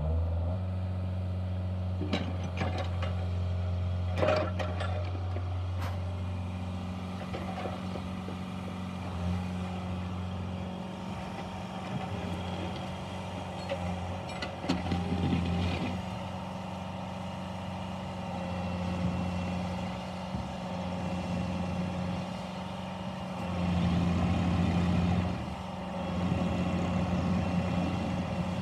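Bobcat 435 mini excavator's diesel engine running, its note changing under load as the machine is operated. There are a few sharp clanks in the first six seconds, and the engine grows louder for about two seconds near the end.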